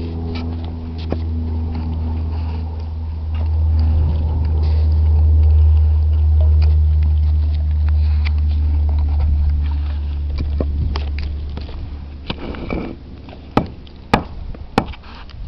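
A steady low-pitched hum that swells a little mid-way and fades out after about twelve seconds, followed by a few sharp clicks near the end.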